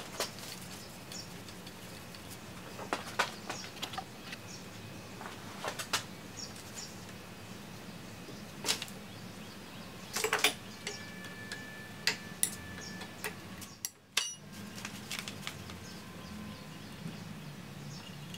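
Irregular metal clinks and knocks from the parts of a South Bend lathe's horizontal drive assembly being handled and shifted on a workbench, over a steady low hum.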